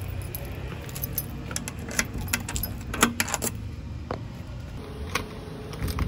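A bunch of keys jangling, with a cluster of small metallic jingles and clicks about two to three and a half seconds in and a few single clicks after. A steady low rumble runs underneath.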